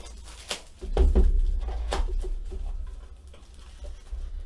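Clear plastic wrapper on a trading-card pack crinkling and crackling as it is unwrapped by hand. There are sharp crackles about half a second, a second and two seconds in, a dull handling thump around the one-second mark, and softer rustling near the end.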